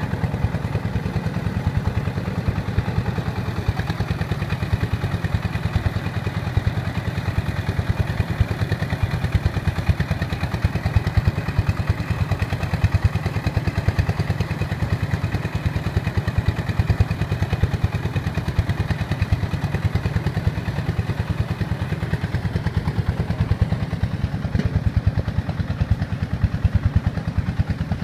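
Engine-driven rice threshing machine running steadily under load as rice sheaves are fed into it, its small engine chugging with a rapid, even beat.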